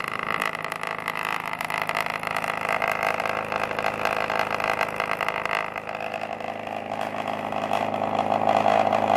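Homemade pulse-motor-driven generator rig running, its spinning rotors and pulsed coils making a steady hum with a fast buzzing pulse. The motor is turned down by pulse-width control to about 1 amp, and the sound gets louder in the last few seconds.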